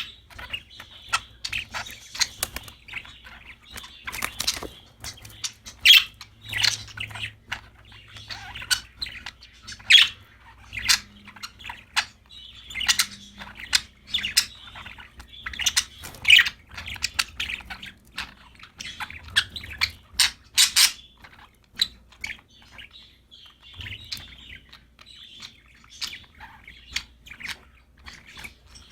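Budgerigars chirping: a steady stream of short, sharp chirps and squawks, with stretches of busy warbling chatter in between.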